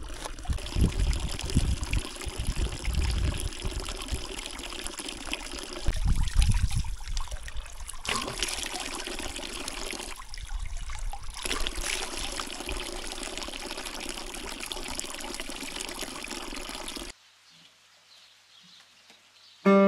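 Water pouring and splashing in a continuous trickle while hands and face are washed, the flow changing a few times and stopping abruptly near the end.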